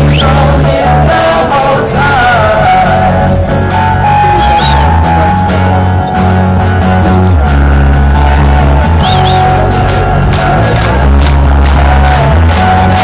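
Live band playing an acoustic arrangement of an indie rock song: strummed acoustic guitar and electric guitar under a sung lead vocal, loud throughout.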